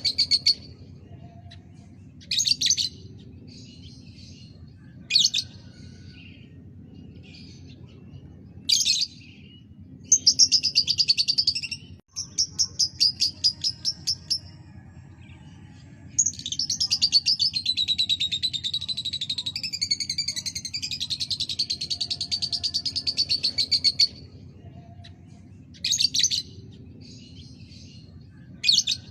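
Lovebird chirping in short, fast-ticking bursts, then a long unbroken chattering trill of about eight seconds from just past the middle, then more short bursts. This is a pancingan, a lovebird song recording played to set other lovebirds singing. A faint steady low hum runs underneath.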